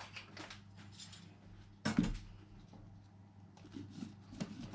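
Light clicks and knocks of kitchen equipment being handled, with one louder thump about two seconds in, over a faint low hum.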